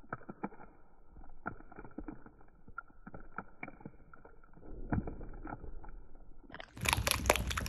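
Slime being kneaded and pressed flat by hand: soft squelches with many small sharp pops and clicks as air pockets in it burst. Near the end a much louder, brighter crackling starts.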